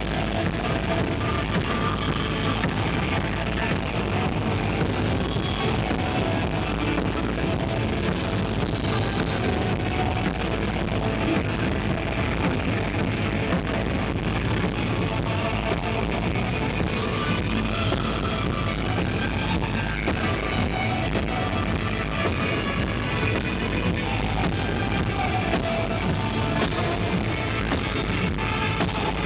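Rock band playing: electric guitars and a drum kit with a steady beat.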